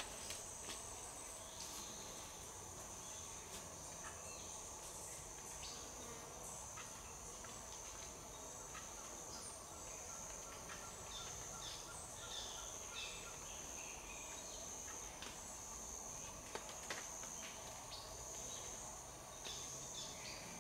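Steady high-pitched insect chorus in tropical forest, with scattered short bird chirps and a couple of sharp clicks about four-fifths of the way through.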